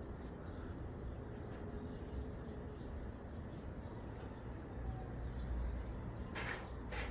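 Outdoor background noise: a steady low rumble with faint bird chirps, and two brief rustling sounds near the end. The wailing siren-like sound is not heard.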